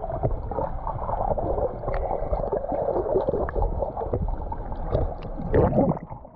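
Water sloshing and gurgling against the hull of a small boat, with scattered knocks, a louder surge about five and a half seconds in, and then a sudden drop in level.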